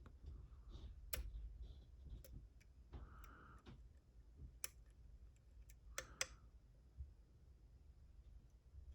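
Faint, irregular metallic clicks and ticks of a lock pick working the pins of a six-pin pin-tumbler challenge lock, checking each pin for binding and counter-rotation under tension.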